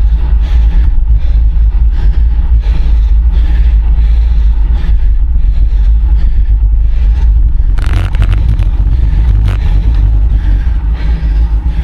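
Wind rumbling over the microphone of a camera on a road bike in motion, with steady road noise. A short burst of rattling clicks comes about eight seconds in.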